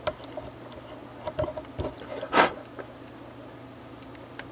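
Handling noises from fiddling with a small plastic voice recorder: scattered faint clicks and rubs, with one louder, short brushing noise a little after two seconds in.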